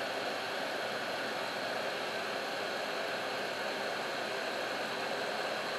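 SMD hot air rework station blowing a steady hiss of hot air over solder paste and tiny surface-mount parts on a circuit board.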